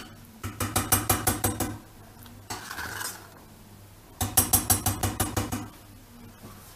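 Wire whisk rattling against a stainless steel saucepan while stirring butter into thick, just-cooked pastry cream: two quick runs of clicks, about eight a second, the second starting about four seconds in.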